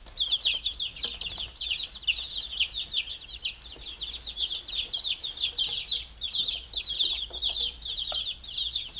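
A flock of week-old chicken chicks peeping continuously, many high, falling peeps overlapping.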